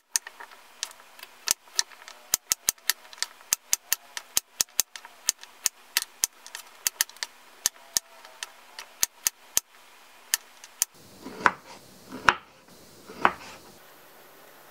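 Chef's knife chopping carrots into sticks on a wooden cutting board: sharp, irregular knocks of the blade striking the board, about two or three a second, stopping about eleven seconds in. Near the end come three louder, duller knocks.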